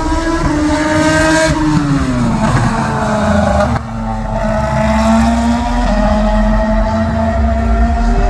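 Ferrari race car engines running at high revs on the track. One engine note falls in pitch as a car goes past about two seconds in. After a sudden break a little later, a steadier high engine note climbs slowly.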